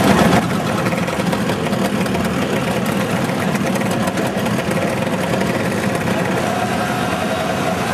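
Scooter engines running steadily.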